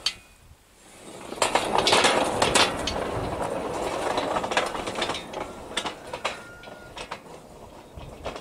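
Small test bogie on home-made straight-tread steel wheels rolling along light steel rails after a push: a metallic rolling rumble with scattered clicks and clacks. It starts about a second in, is loudest soon after, and fades as the bogie rolls away.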